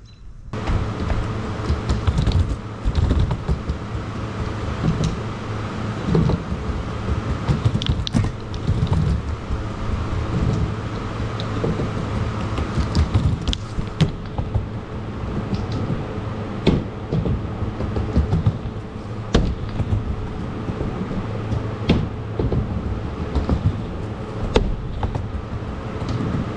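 Surfskate wheels rolling on a plywood mini ramp, a continuous rumble with scattered sharp knocks and clacks as the board turns on the transitions.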